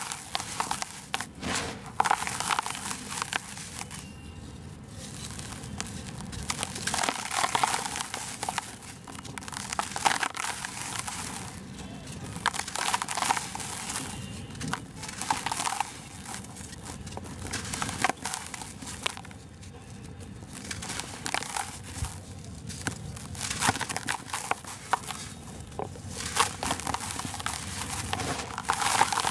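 Dry sand-and-cement blocks crushed and crumbled by hand: gritty crunching as the lumps break, with powder trickling through the fingers, coming in irregular bursts every second or two.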